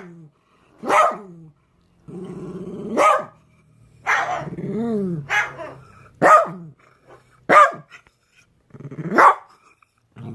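A dog barking in single barks every second or two, about six in all, with a low growl and a longer, arching call between the early barks.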